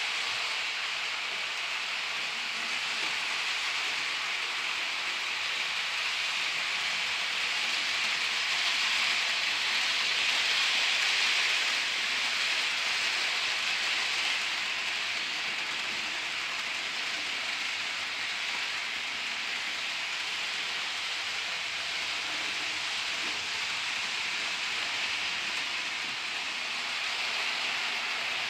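HO scale model steam switcher and its cars running along the layout track: a steady hiss of wheels and small motor that swells a little around ten seconds in.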